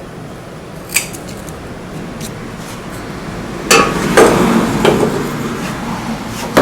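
Metal tools and mower recoil-starter parts clinking and knocking as they are handled: a sharp clink about a second in, then a run of knocks and rattling in the second half, ending on a loud knock.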